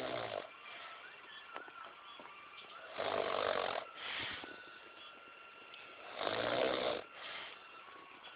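Snoring: three loud snores about three seconds apart, each under a second long, with a fainter breath sound after the second.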